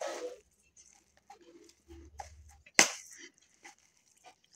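Steel spoon stirring a thick semolina-and-curd mixture in a steel plate: soft squelching scrapes with scattered clicks, and one sharp knock of spoon against plate about three seconds in.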